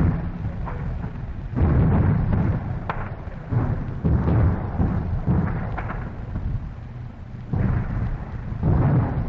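Wartime field recording of a British artillery barrage and German mortar fire: heavy booms every second or two, each rolling into the next like thunder, with the strongest blasts about a second and a half in, around four seconds, and near the end.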